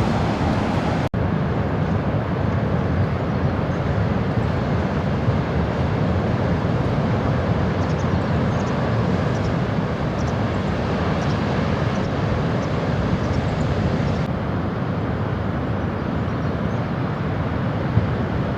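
Steady road and engine noise of a car, heard from inside while driving, with a momentary dropout about a second in.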